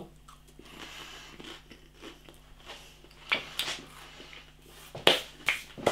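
A man chewing a mouthful of toast spread with crunchy peanut butter, with a few short crunches about three seconds in and again near the end.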